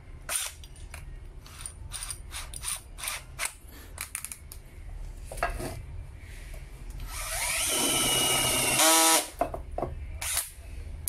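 Makita cordless drill boring into a wooden block with a spade bit: a couple of seconds of rising motor whine as it spins up and cuts, the loudest part, then winding down. Before that, clicks and rattles from the bit being fitted and the chuck being handled.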